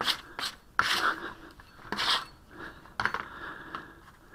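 Scattered rubs and scrapes, several short irregular strokes, as a lump of Sarco Type M glazing putty is pressed and worked by hand and putty knife on a board.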